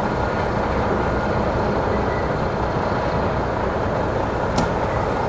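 Heavy semi-truck diesel engines running steadily at close range, an even low rumble with no revving. A single short, sharp click about four and a half seconds in.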